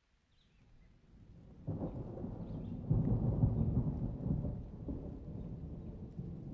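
A roll of thunder: a low rumble that builds from near quiet, jumps louder about a second and a half in, peaks around three to four seconds and then slowly dies away.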